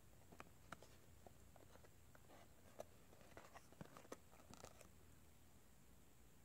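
Faint handling of a cardboard box in the hands: a scatter of small clicks and soft rustles as it is turned over, otherwise near silence.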